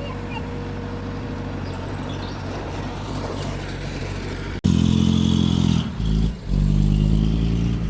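Bulldozer's diesel engine running steadily. After a sudden break about four and a half seconds in, it is much louder, dips briefly about a second and a half later, then comes straight back up.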